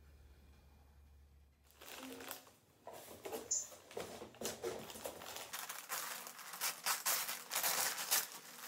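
Gift-wrapping paper crinkling and tearing as a present is unwrapped, starting suddenly about two seconds in as a dense run of irregular rustles and rips.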